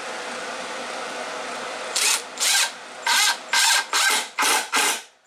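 Cordless impact driver driving a screw into a pine board in a quick run of short trigger bursts, about two a second, starting about two seconds in over a steady background hiss.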